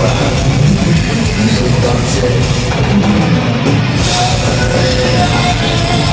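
Death metal band playing live at full volume, with distorted electric guitars and pounding drums. The cymbals drop away for about a second midway, then crash back in.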